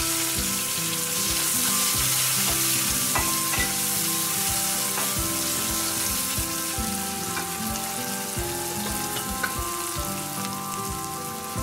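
Chopped onions sizzling in hot sesame oil in a metal kadai. A wooden spatula stirs them, knocking and scraping against the pan. The sizzle is strongest just after the onions go in and eases a little later on.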